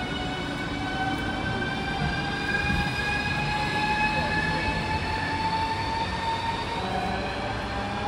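ES2G «Lastochka» (Siemens Desiro RUS) electric train accelerating away past the platform: its traction motors whine in a stack of tones rising slowly in pitch, over wheels rumbling on the rails. It is loudest as the last car goes by, about three to four seconds in.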